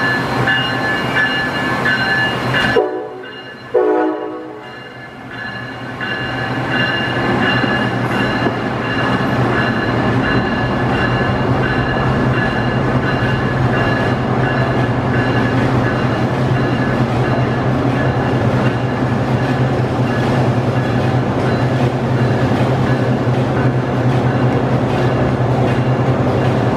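Amtrak Siemens ACS-64 electric locomotive running with a steady hum and high, held whine tones from its electrical equipment. About three seconds in come two short horn blasts.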